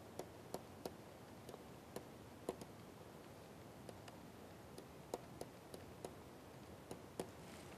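Light, irregular clicks of a stylus pen tapping and stroking on a tablet screen while handwriting, a couple a second over faint room hiss.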